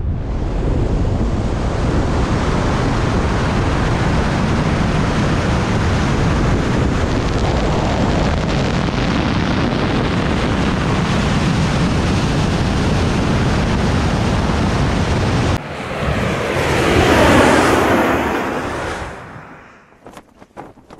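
Steady rushing wind on the camera microphone during a wingsuit flight. About fifteen seconds in it cuts off, and a second rush of air swells and then dies away near the end.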